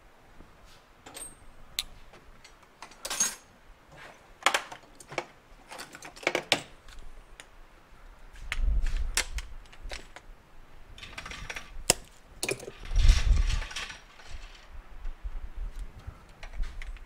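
Hand tools clicking and clinking against metal engine parts while the countershaft sprocket nut is tightened: irregular sharp taps and metallic ticks, with two short low rumbles, one near the middle and one a few seconds later.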